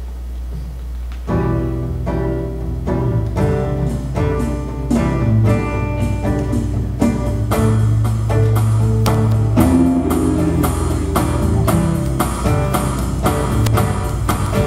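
A steady low hum, then about a second in a live band starts playing: strummed acoustic guitars in a steady rhythm over electric bass and drums, with no singing.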